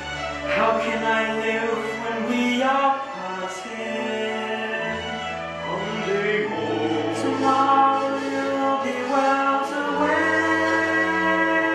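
A choir singing a musical number, holding chords that change every few seconds over sustained low accompaniment.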